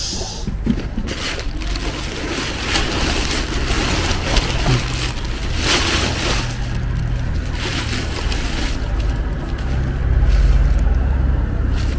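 Black plastic garbage bags rustling and crinkling as hands pull them open and sift through the vegetable scraps inside, over a steady low rumble that grows louder near the end.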